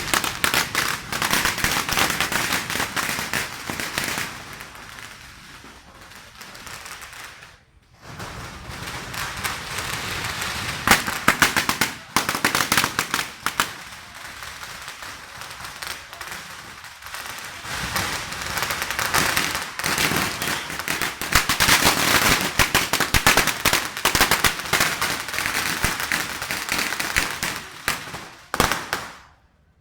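Long strings of firecrackers going off in a dense, rapid crackle of bangs, with a brief break about eight seconds in, then continuing until they stop shortly before the end.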